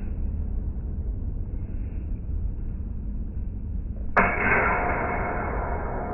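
A single sharp metallic clash about four seconds in, followed by a long ringing that slowly fades: steel fencing sabre blades striking, drawn out and lowered by slow-motion playback, over a low steady rumble.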